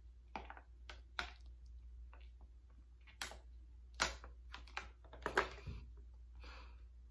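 A person gulping water from a plastic water bottle: a string of short, separate swallowing clicks, irregularly spaced, several close together a little after five seconds in.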